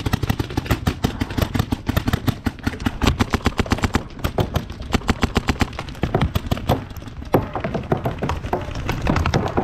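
Paintball markers firing in rapid strings, many sharp pops a second.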